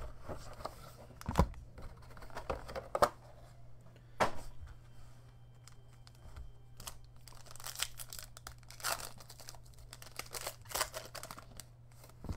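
A few knocks of packaging being handled, then a trading card pack's foil wrapper crinkling and tearing open in several bursts, over a faint steady low hum.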